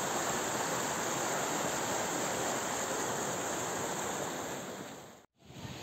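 Fast water rushing through a concrete lake outlet channel with the sluice open, a steady even rush. It fades near the end, then cuts off suddenly.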